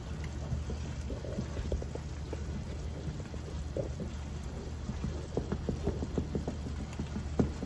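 A wooden spatula stirring pasta in sauce in a skillet as the mix heats to a boil: a steady sizzling hiss with scattered soft clicks and pops of the spatula against the pan, more frequent in the second half.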